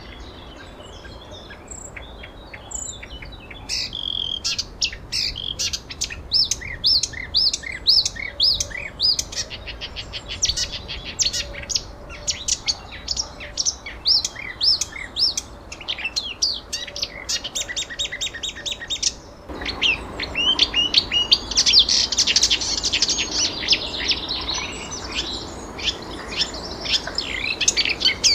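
Songbirds chirping and twittering in quick, rapid runs of short high notes, sparse at first and thickening a few seconds in. About two-thirds of the way through, the background hiss jumps up abruptly and the chirping becomes denser.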